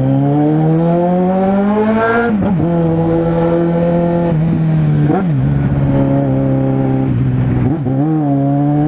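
Suzuki Bandit 650N's inline-four engine and exhaust running loud under way. The revs climb for about two seconds, fall sharply at a gear change, then hold steady. There are brief dips about five seconds in and near the end, and the revs climb again at the very end.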